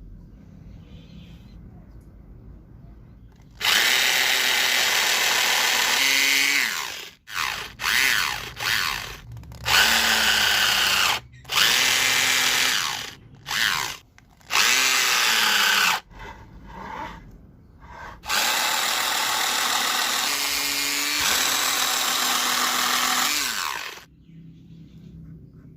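Electric drill running in repeated bursts, starting about four seconds in and stopping and starting several times; the motor note drops as it spins down at the end of each burst.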